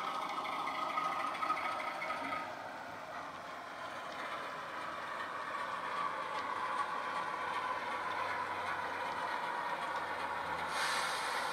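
Sound decoder in a Hornby OO-gauge Class 08 shunter model playing the diesel shunter's engine sound through a small bass-enhanced speaker as the model runs hauling a wagon. A steady whine runs for the first couple of seconds, and a sudden burst of hiss comes near the end.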